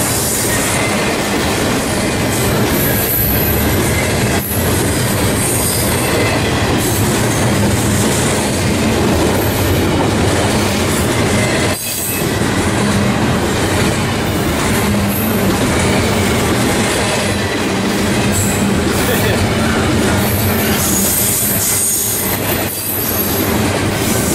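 Intermodal freight train of double-stack container well cars rolling past: a continuous loud rumble and rattle of steel wheels on the rails, with high-pitched wheel squeal at times.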